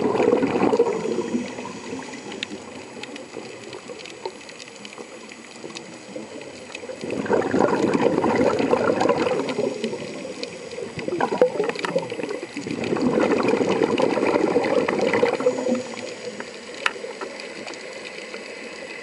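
Underwater scuba regulator exhaust: a diver exhaling, heard underwater as three bursts of bubbling a few seconds apart, each lasting about three seconds. The bursts come at the start, about seven seconds in, and about thirteen seconds in, with quieter water noise between.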